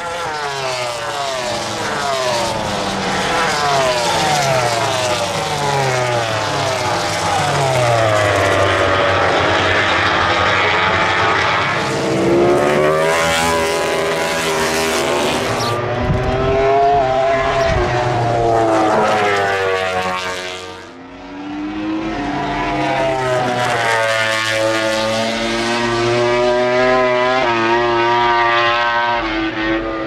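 Aprilia RS-GP MotoGP bikes' big-bang V4 racing engines at full race pace, several passing in turn. The engine pitch sweeps up and down over and over as they change gear and brake for corners. There is a brief lull about two-thirds of the way through.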